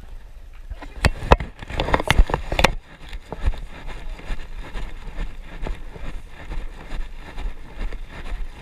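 Knocks and clicks of a handheld action camera being handled and turned around, then rhythmic running footfalls and wind rumble on the camera's microphone as the runner jogs along the asphalt track.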